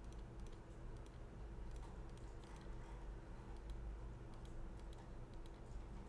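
Faint computer mouse clicks, scattered and irregular, over a low steady electrical hum.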